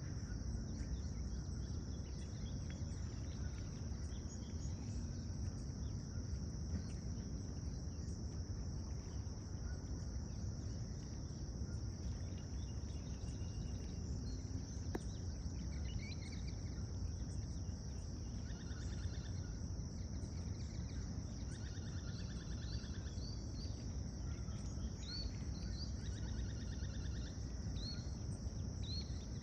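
A steady high-pitched drone of insects over a low background rumble. From about halfway through, a bird adds short, repeated chirps and quick trills that come back again and again to the end.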